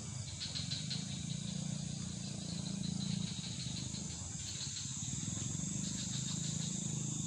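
Night insect chorus: fast, pulsing chirps that come and go over a steady high-pitched hiss, with a steady low drone underneath.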